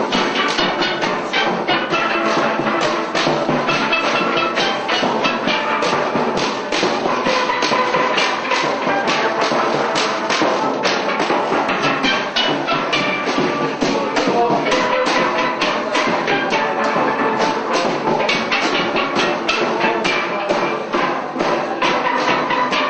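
Lively music with fast, dense percussion keeping a steady beat and pitched melody notes over it.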